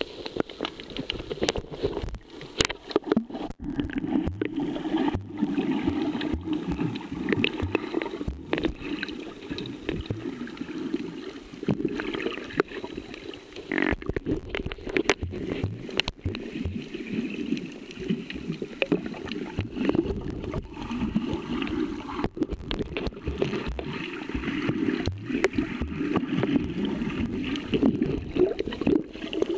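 Underwater sound picked up by a handheld camera during a snorkel dive: a continuous muffled rush of water with frequent irregular knocks and clicks.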